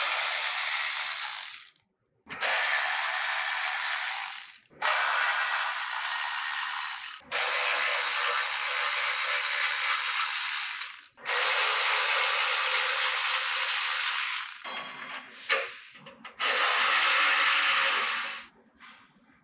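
Cordless electric ratchet running in about six runs of two to four seconds each, with short breaks between, driving the shield's mounting bolts in and snugging them tight. A few short bursts come about three-quarters of the way through.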